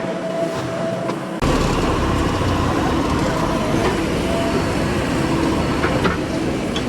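Heavy diesel earthmoving machinery running, with a steady engine hum that jumps suddenly to a much louder, rougher rumble about a second and a half in, and a few short knocks later on.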